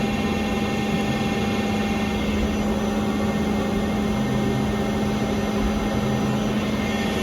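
Angelini Snupy CNC lathe running: a steady machine hum with several constant tones, the strongest low one stopping right at the end.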